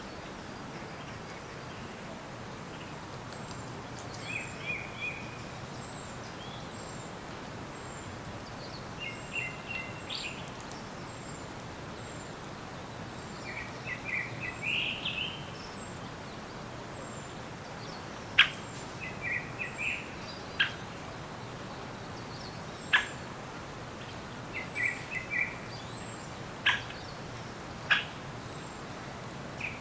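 Forest birds singing over a steady background hiss. A short warbling phrase comes every four to five seconds, a faint thin high note repeats about twice a second, and several sharp loud clicks sound in the second half.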